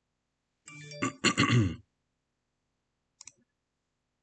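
A short burst of a person's voice about a second in, falling in pitch, then a single computer mouse click a couple of seconds later.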